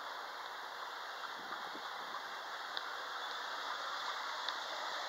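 Regional passenger coaches rolling slowly along the track as the train departs, a steady hiss and rumble of wheels on rails with a couple of brief high wheel squeaks.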